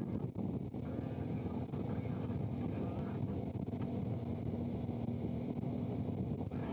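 Camera motorcycle's engine running steadily at low speed behind the riders, under heavy wind noise on the microphone.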